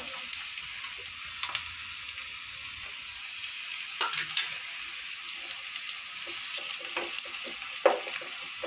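Chopped onions with ginger-garlic paste sizzling in hot oil in a pan, stirred with a wooden spatula that knocks against the pan a few times, most sharply about four seconds in and near the end.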